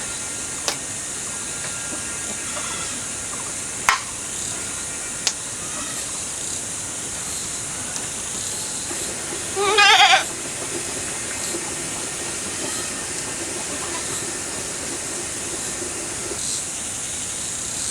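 A goat bleats once, a loud wavering call about ten seconds in, over a steady high hiss. Three sharp clicks come in the first five seconds.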